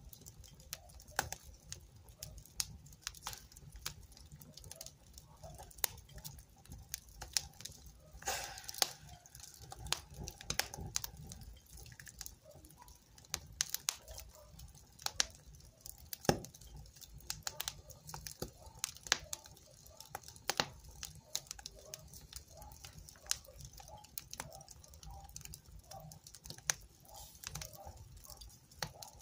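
Wood fire in a fireplace crackling, with irregular sharp snaps and pops over a low steady rumble of the flames.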